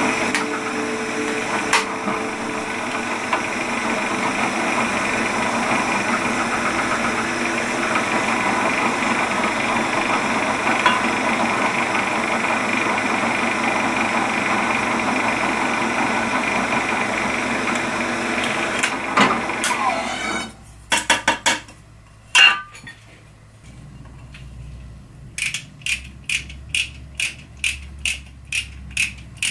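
Drill press motor running with a pointed marking tool in its chuck, the tip scratching an aluminium plate; the motor stops about 20 seconds in. Near the end, short quick scraping strokes, about three a second, as a hole in the plate is deburred with a hand-held countersink tool.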